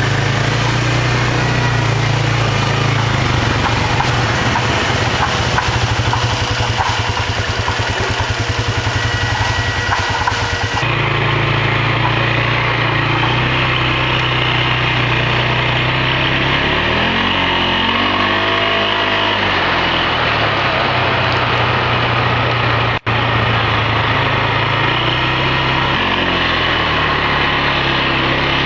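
ATV (quad bike) engine running steadily while the quad is ridden, its pitch rising and then falling as it revs up and eases off a little past the middle.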